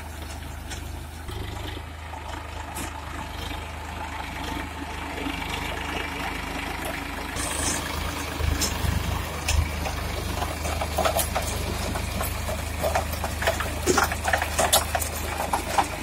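Massey Ferguson 7250 tractor's diesel engine running steadily as it drives a Redlands round baler through the straw. Sharp clicks and rattles from the baler's working chains and rollers grow busier in the second half.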